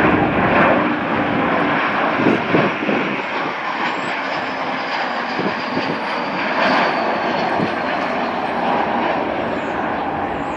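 Airbus A321 jet airliner passing on its landing approach: a steady rushing jet engine noise, with a faint high whine that slowly falls in pitch through the middle.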